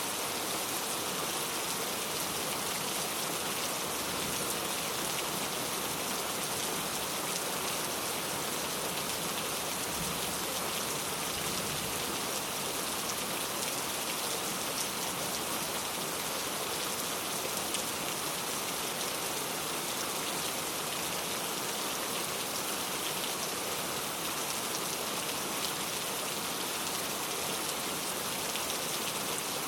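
Steady rain falling, a dense even patter of raindrops on a surface.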